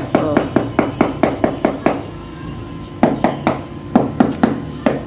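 Rubber mallet tapping a ceramic floor tile down into its bed of wet mortar. There are quick, sharp taps, about four or five a second for two seconds, then after a short pause two more brief runs of taps. The tapping seats the tile fully so no hollow spot is left under it.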